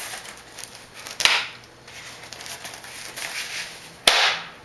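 The strap on a rolled foam tent pad pulled out and snapped back against the foam, twice: a sharp slap about a second in and another near the end, each with a short rustling tail.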